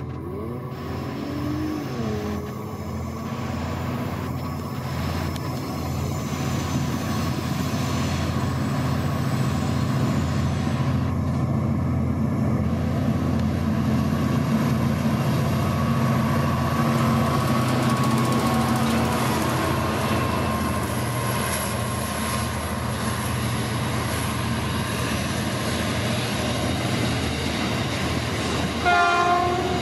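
Diesel-electric locomotives hauling a coal train approach and pass, their engines running with a steady low drone that grows louder about halfway through as the loaded coal wagons roll by. A brief high-pitched tone sounds about a second before the end.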